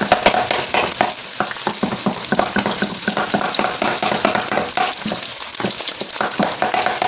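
Eggs sizzling as they fry in hot oil, with a wooden spoon repeatedly scraping and tapping the pan to break them into small pieces.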